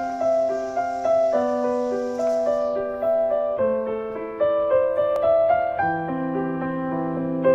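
Background piano music: a slow, gentle melody of single notes over held lower notes.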